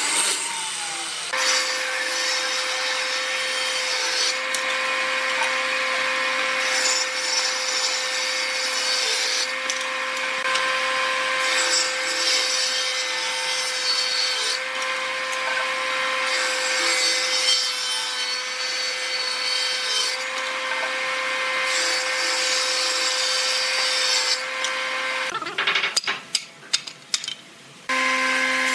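Table saw running with a steady hum while a board is fed through it on a jig, the blade cutting wood. After a short quieter stretch with a few clicks, a thickness planer's motor starts up near the end.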